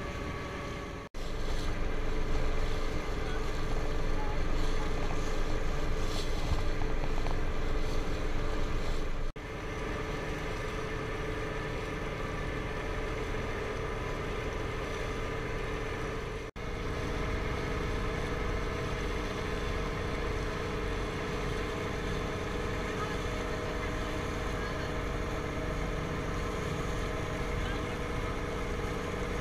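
Motorboat engine running steadily while the boat is under way, with wind and water noise. The sound breaks off for an instant three times and is loudest between the first and second breaks.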